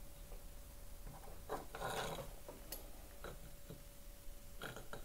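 Faint handling noises of a small circuit board being held and turned under a magnifying glass: a few soft clicks and a brief rustle about two seconds in, with two more clicks near the end.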